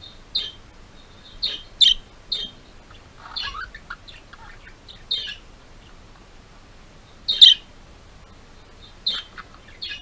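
Budgerigars chirping: about nine short, high chirps, irregularly spaced, with a lower, longer warble about three and a half seconds in. The loudest chirp comes about seven and a half seconds in.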